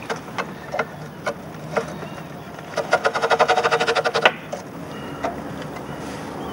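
Hand tools clicking against a fitting on the metal casing of a German magnetic mine as it is taken apart: a few separate metallic clicks, then about halfway a rapid, ratchet-like run of clicks lasting about a second and a half.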